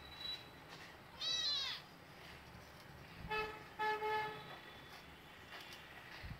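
A kitten gives one short, high-pitched meow. About two seconds later a vehicle horn honks twice in quick succession in the background.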